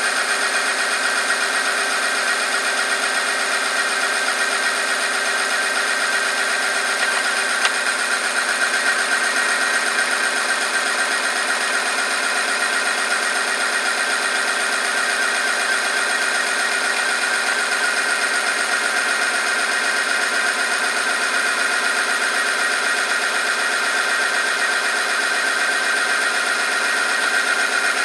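Oil film-strength tester running under load: its electric motor turns the test roller against a weighted sample in oil heated to 100 °C. The sound is a steady mechanical whine with a high, even tone.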